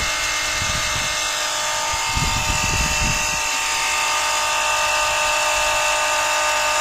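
A small electric motor running steadily with a high whine, likely the pump or compressor at work while the model steam tractor's boiler is filled with water. A few low thumps or puffs come about two to three seconds in.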